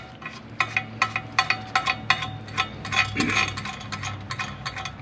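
Light metallic clicking and clinking, about three to four a second, as a nut is spun by hand along the threaded rod of a bushing press, drawing it up against the washer and adapter.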